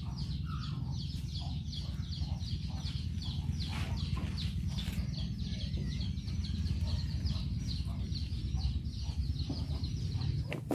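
Chickens calling: a steady run of short, high, falling peeps, about three a second, over a low steady rumble.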